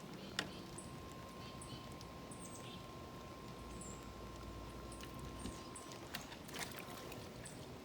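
Faint, short high-pitched bird chirps, roughly one every second, over a quiet outdoor background with a faint steady tone.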